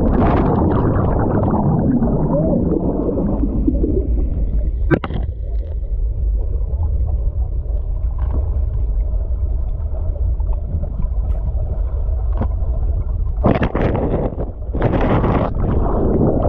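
Muffled, deep rush and gurgle of waterfall water with the camera in or under the water, as he slides into the plunge pool. The sound is dull, with the high end cut off, and two brighter splashes come near the end as the camera comes up out of the water.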